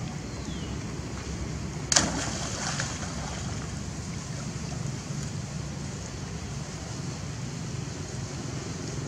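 Water splashing in a muddy pond, with one sharp splash about two seconds in, over a steady low background rumble.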